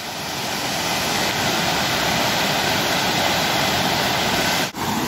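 Steady rush of a fast river tumbling over rapids, an even roar of white water that swells over the first second and then holds, with a brief break near the end.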